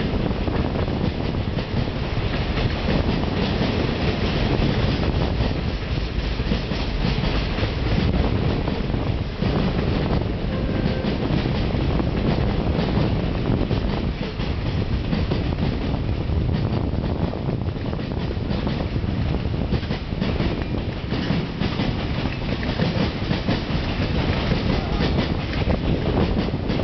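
Freight train wagons rolling past: a steady rumble of steel wheels on the rails with rapid clicking as the wheels cross rail joints.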